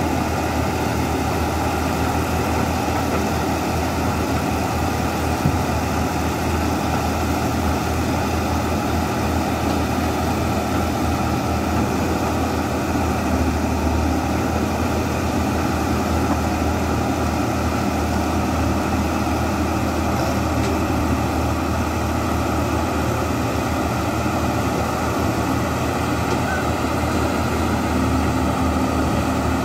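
Caterpillar E200B excavator's diesel engine running steadily as the machine crawls forward on its tracks.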